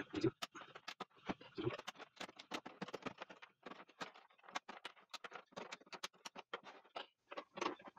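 Plastic case of an LCD TV being prised apart around its edge: a quick, irregular run of small clicks and scratches as the plastic is worked loose.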